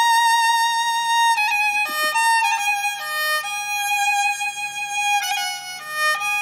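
Solo violin playing a slow melody: a long note held with vibrato, then a string of shorter notes stepping between pitches.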